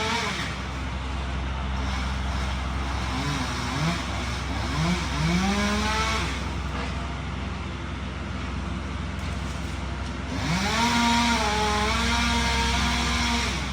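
Chainsaw revving in a few short rises and falls, then held at high revs for about three seconds near the end, over a steady low engine drone.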